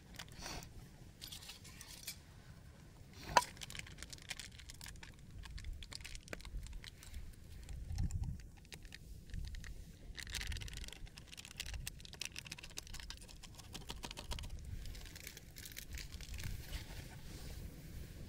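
Handling of stainless steel camp cups and a flask: a single sharp clink about three seconds in, then rustling and the crinkle of a small packet being torn open over a cup around ten seconds in.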